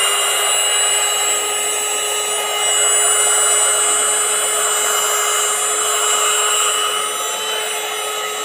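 skyblue.os 9000Pa cordless handheld vacuum cleaner running at a steady speed: a loud, high motor whine over a rush of air.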